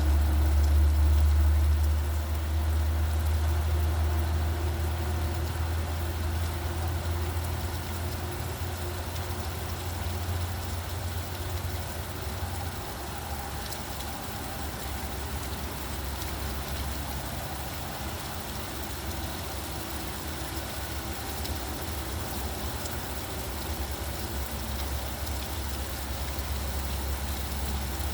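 Steady rain hiss with road traffic: a low vehicle engine rumble is loudest in the first couple of seconds and eases off after about twelve seconds.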